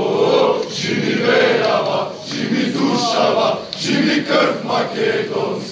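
A large crowd of men chanting together in unison, loud and continuous, in rhythmic phrases.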